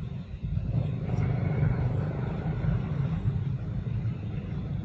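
A steady low rumble, with fainter noise above it.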